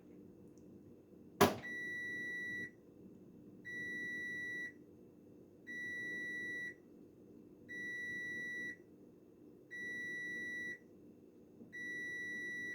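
Haier 7.5 kg washing machine's end-of-cycle signal after a delicate wash: a sharp click, then six steady high beeps, each about a second long and two seconds apart.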